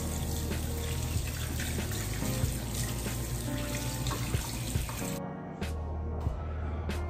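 Water running from a tap into a sink over background music with a steady bass; the running water stops abruptly about five seconds in.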